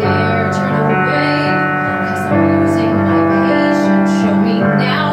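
Piano accompaniment of a slow ballad playing an instrumental passage: sustained chords that change about two seconds in and again near the end.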